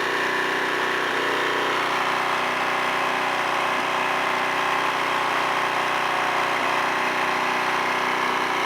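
Alton AT04141 1300-watt suitcase-style portable generator's small gasoline engine running steadily after repair.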